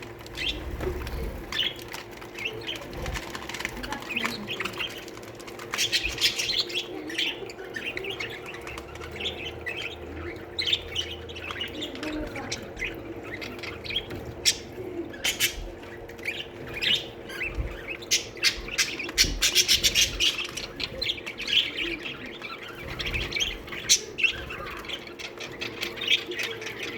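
A colony of budgerigars chattering: many short chirps and warbles overlapping throughout, busiest through the middle.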